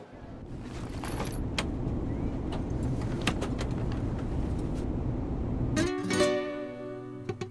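Steady low rumble of an airliner cabin with a few scattered clicks, then plucked acoustic guitar music starts about six seconds in.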